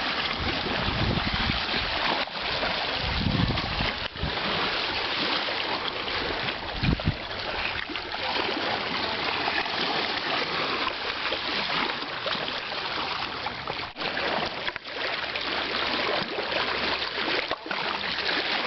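Stream water rushing, a steady wash of noise with a few low rumbles on the microphone in the first few seconds.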